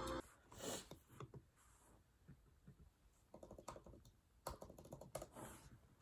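Quiet typing on a laptop keyboard: irregular clusters of short key clicks, busiest in the second half.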